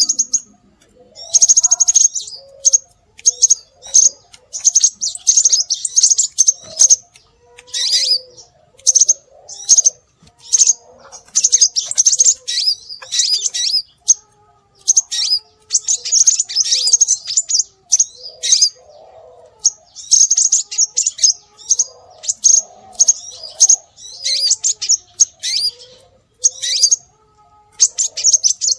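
Scarlet minivet (sepah raja) calls played as a bird-lure recording: bursts of rapid, high chirping phrases repeating every second or two, with short gaps between them and softer, lower warbling notes beneath.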